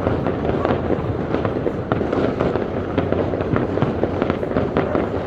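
Fireworks display: a dense, continuous run of bangs and crackles, several a second, over a steady low rumble.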